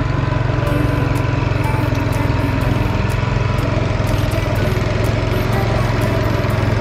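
Small boat engine running steadily, a loud even drone that drives the wooden boat along.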